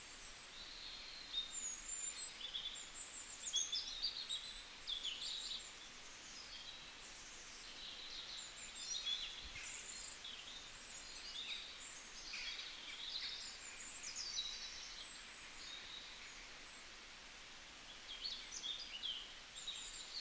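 Several small birds chirping and twittering in quick, high calls that come in clusters, with a quieter stretch near the end, over a faint steady outdoor hiss.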